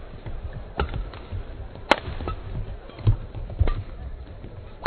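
A badminton rally: sharp racket hits on the shuttlecock about a second apart, the loudest about two seconds in, with the thuds of players' feet on the court.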